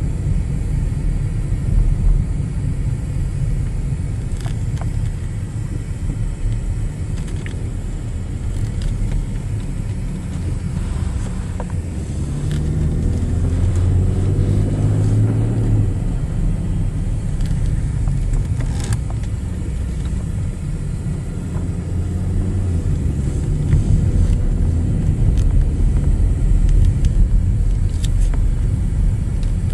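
Car driving, heard from inside the cabin: a steady low rumble of engine and tyres, with the engine note swelling for a few seconds about halfway through.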